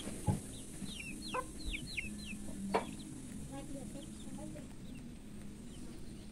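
A run of short, high, falling bird chirps, bunched in the first couple of seconds and sparser later, over a low steady hum. A few sharp knocks stand out: one about a third of a second in, one near one and a half seconds, and the loudest near three seconds.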